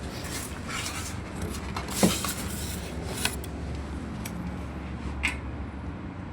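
A few scattered knocks and clicks, the sharpest about two seconds in, over a steady low hum.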